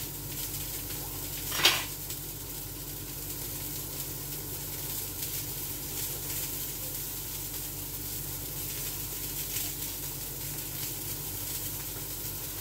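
Burger patties sizzling steadily in a frying pan, with a low steady hum underneath. A single short clack sounds just under two seconds in.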